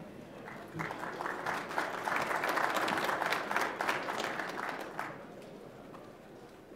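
Audience applauding, starting about a second in and dying away about four seconds later.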